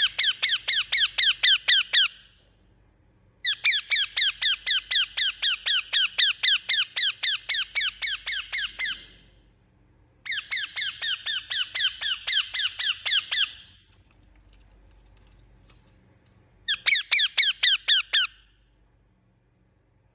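Parrot chirping in rapid, evenly spaced runs of short high-pitched chirps, about six a second, in four bursts with short pauses between them.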